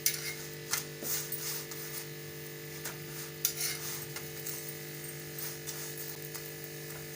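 A few utensil clicks and scrapes against a pan, with faint sizzling from frying, over a steady electrical hum.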